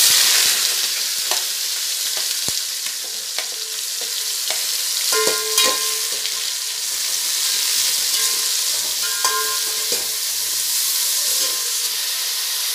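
Sliced onions going into hot oil in a metal pot and frying with a steady sizzle, loudest as they go in at the start. A perforated steel ladle stirs them, knocking and scraping against the pot with a few ringing clinks.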